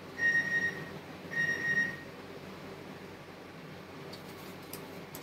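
Two short electronic beeps, each about half a second long, the second following about a second after the first, over a faint steady background hum.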